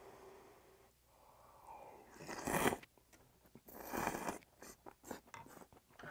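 A person slurping a hot spoonful of pork gukbap with glass noodles: two loud, short slurps, about two and a half and four seconds in.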